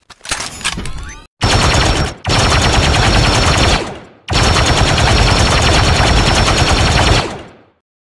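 Rifle gunfire sound effect: a few short mechanical clicks, then three bursts of rapid automatic fire, the last about three seconds long, with a thin high tone running under the later bursts.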